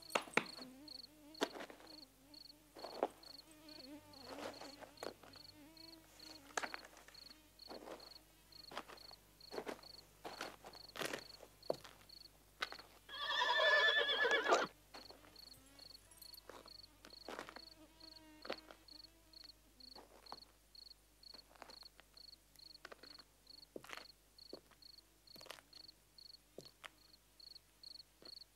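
Cricket chirping steadily at about two chirps a second, with scattered short clicks and knocks. About halfway through there is one loud, drawn-out call lasting about a second and a half.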